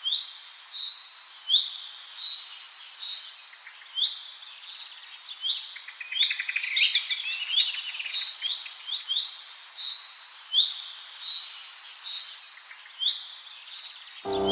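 Birds calling and singing: a busy mix of short, high chirps, quick sweeping notes and rapid trills. The same sequence of calls plays twice, the second time starting about halfway through. Music begins just at the end.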